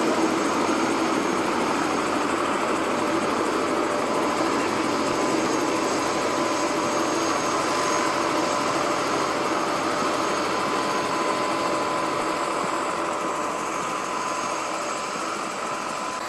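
Steady engine drone with a constant whine, easing slightly near the end.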